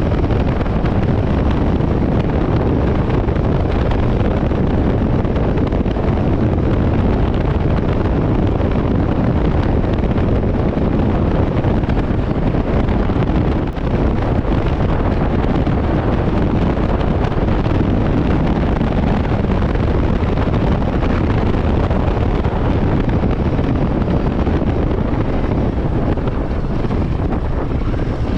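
Steady wind rush over the microphone while riding a Royal Enfield Himalayan 450 motorcycle, its 452 cc single-cylinder engine running beneath the wind. The level dips briefly about halfway through.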